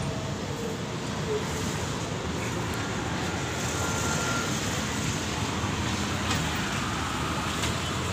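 John Deere 5045D tractor's three-cylinder diesel engine running steadily, heard from the operator's seat.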